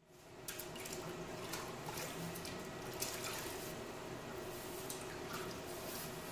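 Water sloshing and dripping in a large bucket of water as concrete tools, including a hand trowel, are wiped down with a wet sponge to dampen them, with many small splashes.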